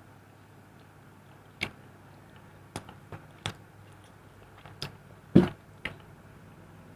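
Someone eating close to the microphone: a handful of short, sharp crunches and mouth clicks from biting and chewing, the loudest about five and a half seconds in, over a faint steady hum.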